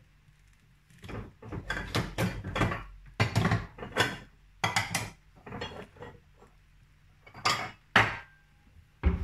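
Irregular clattering and knocking of kitchen things being handled, with a few sharper knocks among it.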